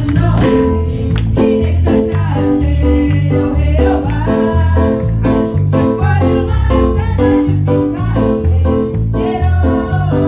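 Live church worship band playing an upbeat praise song. Women sing into microphones over strummed acoustic guitar and electric bass, with a steady bouncing beat.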